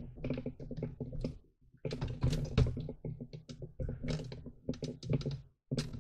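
Irregular clicking and knocking handling noise as a hand-held camera is carried about, over a low steady hum.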